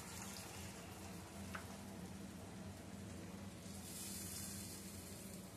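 Faint sizzling of curry masala in a wok as rinse water is poured in and stirred with a silicone spatula, a little louder about four seconds in.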